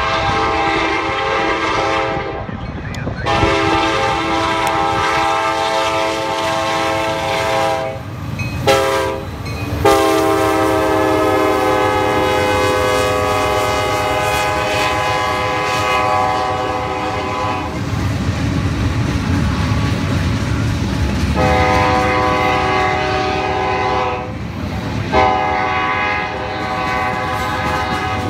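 CSX freight train's diesel locomotive air horn sounding at a grade crossing: two long blasts, a short one and a long held one, which is the standard crossing signal. Then a heavy diesel rumble as the lead locomotives pass, two more horn blasts, and the clatter of freight car wheels rolling by near the end.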